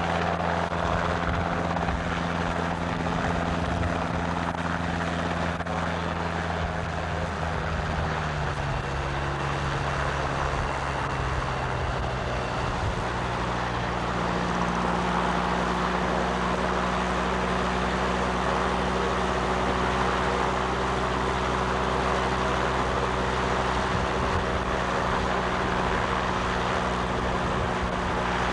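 A small aircraft's engine running steadily overhead, its pitch dropping about a third of the way in and then holding at a new steady note.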